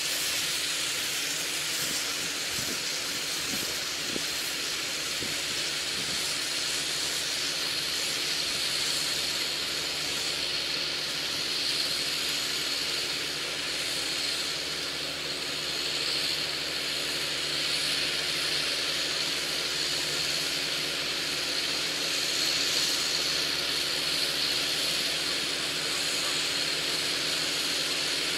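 Tractor engine running steadily in the distance while working a field, a low drone under a steady hiss.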